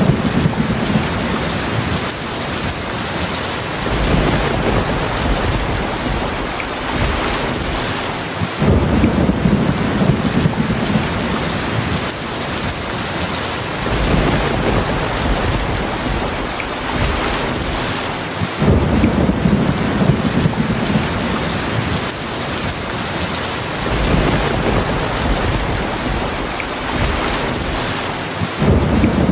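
Heavy rain pouring down steadily during a thunderstorm, with low rolls of thunder that swell up and fade out every four to five seconds.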